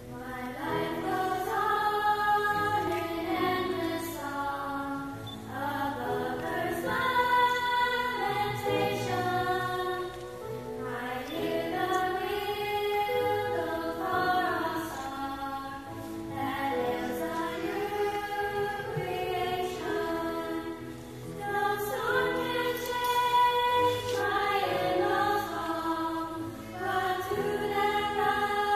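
Children's choir of fifth and sixth graders singing, in phrases of a few seconds with short breaths between them.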